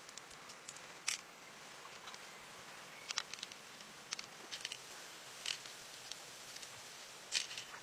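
Short, sharp clicks and taps at irregular intervals as pearls are picked out of an opened shell, knocking against each other and the shell, over a faint steady hiss.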